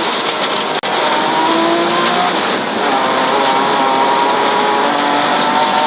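Rally car heard from inside the cabin, its engine pulling hard with the pitch climbing steadily, over the hiss and rumble of tyres on gravel. There is a brief drop in the sound about a second in.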